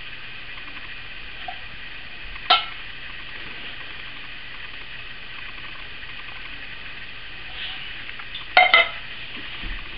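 A spoon knocks against a metal cooking pot with one short ringing clang. Near the end the pot clanks twice in quick succession as it is set down on a tile floor. A steady hiss lies underneath.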